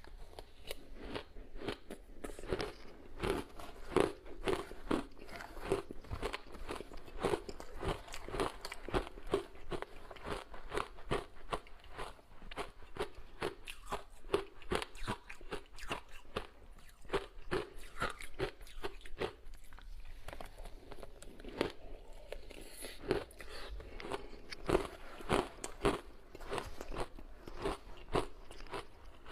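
Ice being bitten and chewed close to the microphone: a continuous run of sharp crunches with no pauses.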